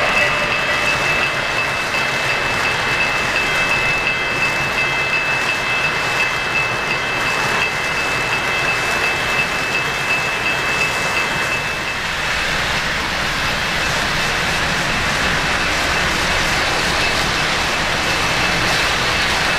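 O-gauge model freight train running on three-rail track behind a K-Line Virginian FM Trainmaster model, a steady rolling rattle of metal wheels with a thin high whine. About twelve seconds in the whine stops and the rolling noise turns brighter and hissier.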